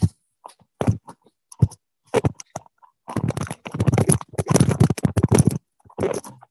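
Handling noise close to the microphone while it is being adjusted: short scrapes and knocks with silences between them, then a denser stretch of rubbing and scraping in the second half.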